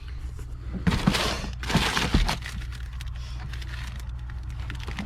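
Rustling and crinkling of packaging as items are taken out of a box and handled, in two bursts about one and two seconds in, over a steady low hum.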